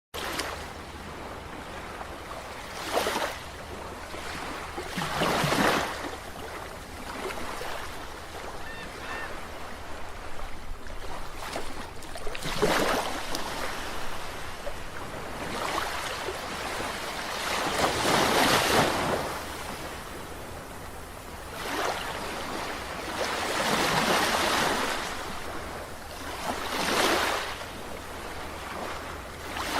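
Ocean waves breaking on a beach, about eight irregular swells of surf hiss each rising and falling back, over a steady wash of water.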